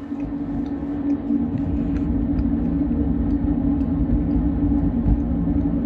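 Freight train rolling past, a steady low rumble with a constant hum and faint clicks and rattles from the cars.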